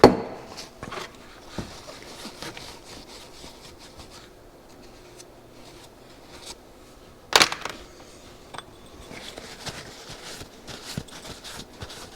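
Small go-kart carburetor being handled and wiped on the bench: scattered light clicks and rubbing, with a sharp knock about seven seconds in.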